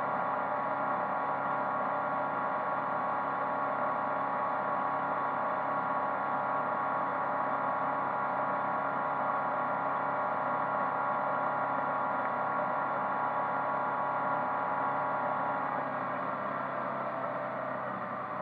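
Original MerCruiser 140 hp 3.0 L four-cylinder inboard engine running steadily while the boat is under way, heard inside the cabin as an even hum. It drops slightly in level near the end.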